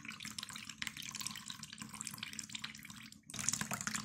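Liquid trickling in a thin stream into a plastic bowl as wet pulp is squeezed by hand through a small strainer, getting louder near the end.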